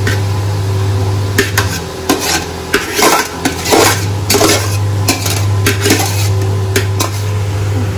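Metal spoon scraping and clanking irregularly against a metal pot while stirring rice into chicken and vegetables, over a steady low hum.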